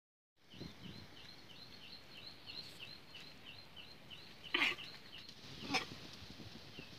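Small animal chirping outdoors: an even run of short, high chirps, about three a second, which stops about five seconds in. Two brief, louder sharp calls come a little after four and a half seconds and again near six seconds.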